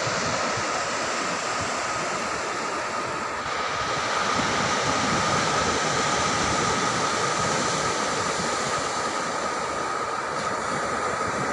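Steady rushing of surf breaking on a sandy beach, mixed with wind on the microphone, with a thin steady whine running through it.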